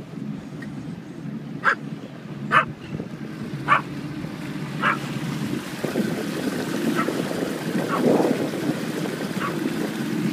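A dog barking about six times over the steady running of a Mercury 90 hp outboard motor, which grows louder about six seconds in along with the rush of the wake.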